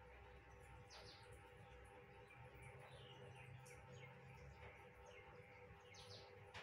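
Near silence: quiet room tone with a faint steady hum and a few faint, short bird chirps in the distance, about a second in, around three seconds and again near the end.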